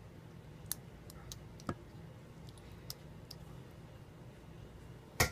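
A plastic spoon spreading sauce in a multicooker's inner pot, with faint scattered clicks and taps of the spoon against the pot and one sharper click near the end.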